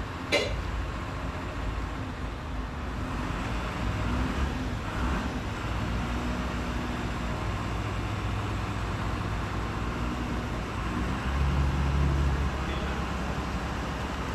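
Dump truck's diesel engine running steadily with a low note, growing louder about four seconds in and again around eleven to twelve seconds in. A single sharp click sounds just after the start.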